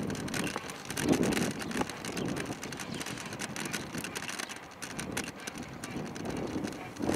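Kick bike rolling along an asphalt bike path: a steady rolling rumble from the wheels, with small rattling clicks and wind rumbling on the microphone in swells.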